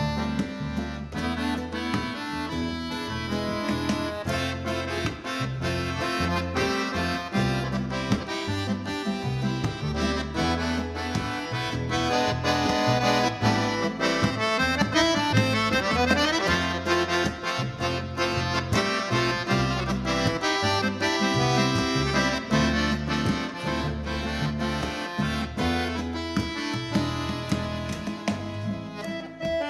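Jupiter bayan (chromatic button accordion) playing a melody over a bass accompaniment, with a quick rising run about sixteen seconds in.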